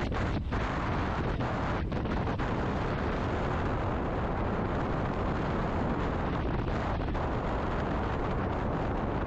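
Steady rushing wind noise buffeting the microphone, a constant low rumble and hiss.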